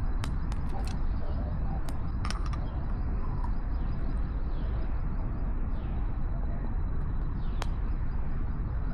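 Steady low rumble of distant city traffic, with a few small sharp clicks and taps in the first couple of seconds and one more about seven and a half seconds in.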